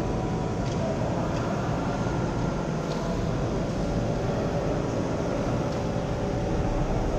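Steady low rumble and hum of a large hall, with a few faint clicks.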